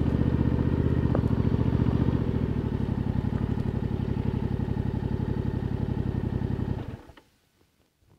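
2021 Yamaha MT-07's parallel-twin engine, through its stock Euro 5 exhaust, running steadily at low revs, then stopping abruptly about seven seconds in.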